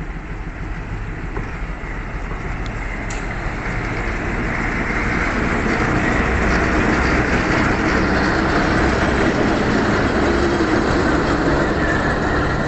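Alco diesel locomotive pulling away and passing close by, its engine running steadily. The engine and the rumble of wheels on the rails grow louder as it comes alongside, about a third of the way in.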